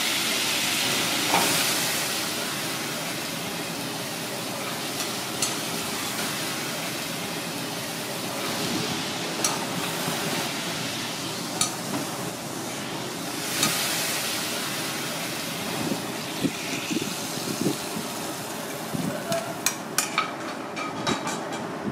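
Tomato sauce sizzling in a frying pan over a gas flame, a steady hiss, with scattered sharp clicks that come more often near the end.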